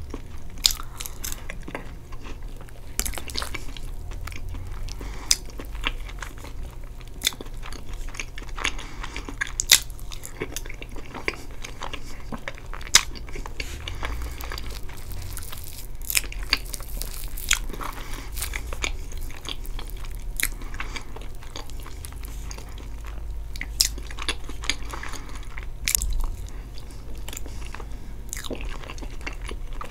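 Close-miked chewing and wet mouth sounds of someone eating soft chocolate cake with whipped cream and caramel sauce, with short sharp clicks scattered irregularly throughout.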